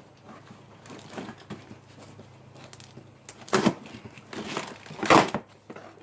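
Cardboard shipping box being opened by hand: quiet rustling of the flaps, then two short, loud rough rips about three and a half and five seconds in.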